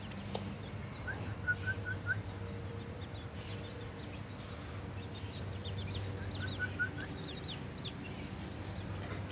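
Baby chicks peeping: many short high peeps, with a quick run of four lower notes about a second in and again around six seconds. A steady low hum runs underneath.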